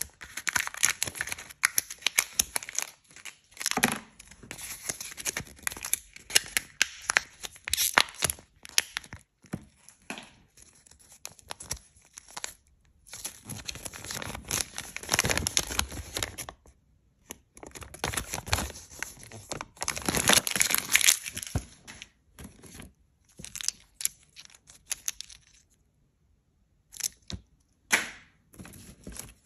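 Foil seal of a Kinder Joy plastic egg capsule being peeled and torn, with crinkling foil and the rustle of a folded paper leaflet being opened, plus small sharp clicks of plastic handling. The sounds come in irregular bursts with short pauses between them.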